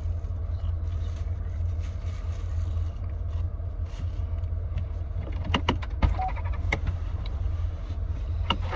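Steady low rumble of a car heard from inside the cabin. About two-thirds of the way through comes a quick cluster of sharp clicks and taps, with one more click near the end.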